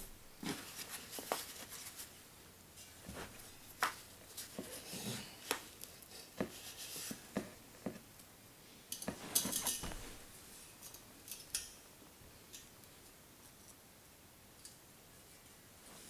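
Faint scattered handling noises: small clicks, clinks and short scrapes as a portable propane heater is shifted and adjusted by hand, dying away about three-quarters of the way through.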